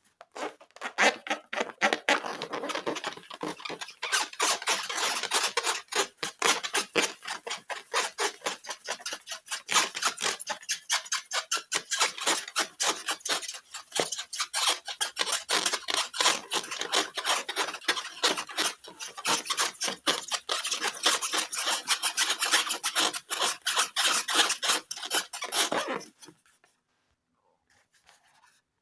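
Fast, continuous rubbing and rasping made of many rapid scratchy strokes, which stops abruptly a couple of seconds before the end.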